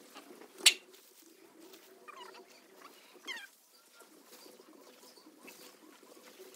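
Birds calling in short chirps, twice, about two and three seconds in, over a faint steady low drone. A single sharp knock just under a second in is the loudest sound.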